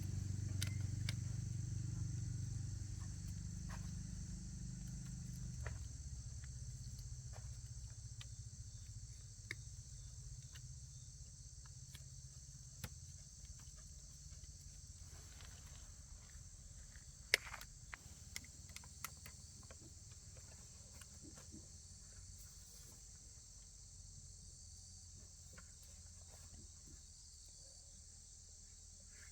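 Steady high-pitched chirring of insects such as crickets. A motor's low rumble fades away over the first six seconds, and there are a few scattered light clicks.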